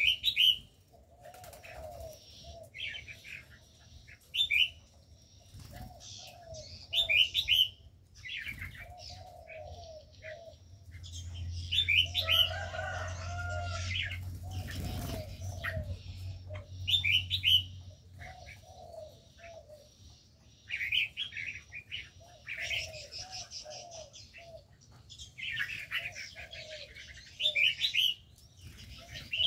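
Spotted doves cooing in repeated short, low phrases while red-whiskered bulbuls chirp and whistle higher up. A low steady hum joins in the middle for several seconds.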